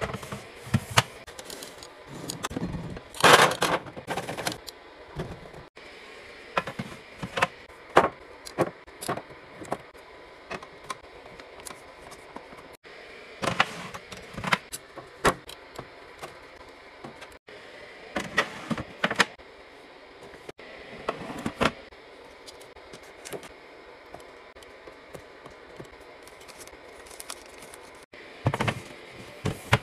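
Irregular clacks, taps and knocks of containers and food items being handled and set down while a fridge is restocked, some quick and clustered, a few louder thuds among them, over a steady low hiss.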